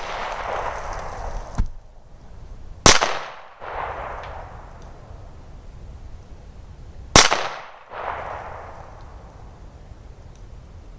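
Two loud gunshots about four seconds apart, each followed by an echo coming back under a second later, with a smaller sharp crack a second or so before the first. Another shot lands right at the end.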